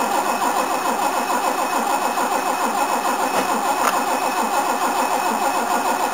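Mercedes-Benz W108's engine being cranked over by the starter motor in an even rhythm without catching. It is a hard start on petrol after months on LPG, with the cranking drawing fuel up into the carburettors.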